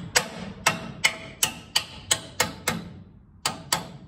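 Hammer striking steel, driving a tight spacer into place in a haybine's wobble box drive: about a dozen sharp metallic blows, roughly three a second, each with a short ring. The blows pause briefly near the end, then two more follow.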